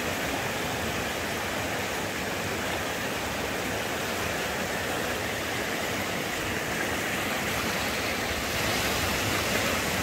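Shallow mountain river rushing over rapids: a steady hiss of white water, a little louder near the end.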